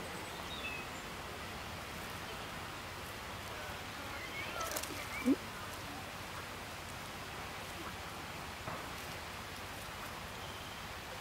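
Steady outdoor background hiss, with a few faint chirps and one short sharp call about five seconds in.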